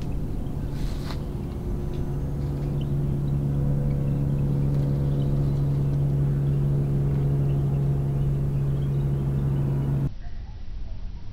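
A steady low drone with a buzz of evenly spaced overtones, cut off abruptly about ten seconds in.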